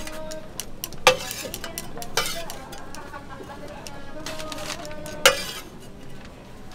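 Metal tools clicking and scraping as finished baby castella are picked out of a hot mold with a skewer and scooped along a stainless steel tray. Three sharp metallic knocks with a short ring stand out: about a second in, at two seconds, and a little after five seconds.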